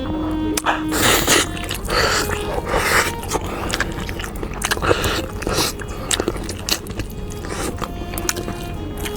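Close-miked eating: a string of irregular loud bites and chewing sounds, with soft background music underneath.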